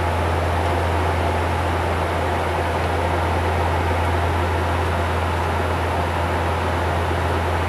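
Cockpit noise of a Bombardier Q400 turboprop airliner in cruise: a steady low propeller drone under an even rush of air.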